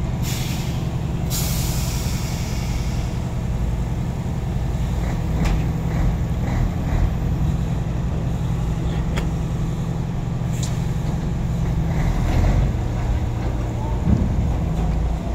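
Heavy diesel engines idling steadily, with two loud hisses of released compressed air in the first three seconds and a few short metallic clanks later on.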